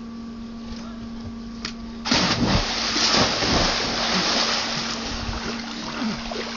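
A person jumps into a swimming pool about two seconds in: a sudden loud splash, then water sloshing and spattering that slowly dies down. A steady low hum runs underneath.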